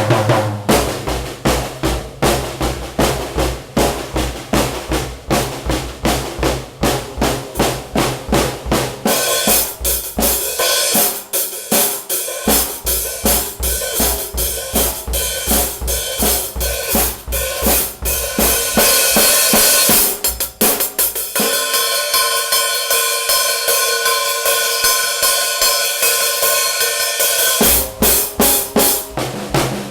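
A drum kit played continuously in a steady beat of bass drum, snare and cymbals. For several seconds after the middle the bass drum drops out and the cymbals carry on alone, then the full beat comes back near the end.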